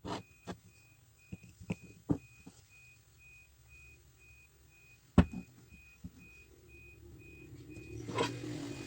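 An electronic beeper sounding short, even beeps of one pitch about twice a second, like a reversing alarm, with scattered knocks and clicks; the loudest knock comes about five seconds in.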